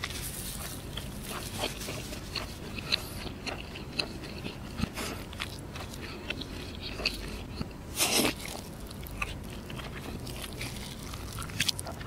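Close-up mouth sounds of a person chewing roti canai with fried egg: soft wet chewing with many small clicks and smacks, and one louder crackle about eight seconds in.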